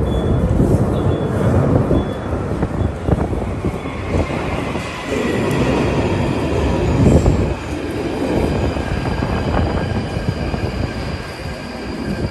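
London Underground Northern line train pulling away and running through the tunnel, heard from inside the carriage: a loud rumble of wheels on rails, with a high motor whine coming in about four seconds in.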